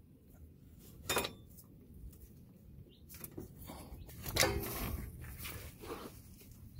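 Hands working a serpentine belt off the crankshaft pulley, with light metallic clinks and scrapes: a sharp clink about a second in and the loudest clatter about four and a half seconds in.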